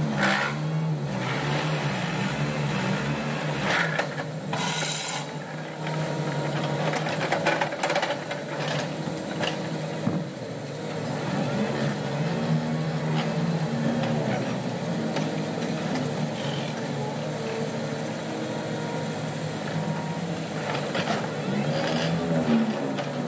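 Excavators' diesel engines running on a construction site, their pitch rising and falling as the hydraulics work. Occasional metal clanks and knocks are heard, with a short hiss about five seconds in.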